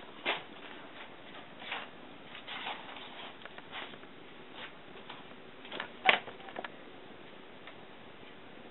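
Scattered soft clicks and brief scrapes of handling close to the microphone, with one sharper click about six seconds in; after about seven seconds only faint room hiss remains.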